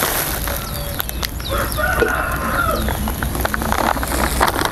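A rooster crowing once, about two seconds in, lasting about a second, over a steady low background hum.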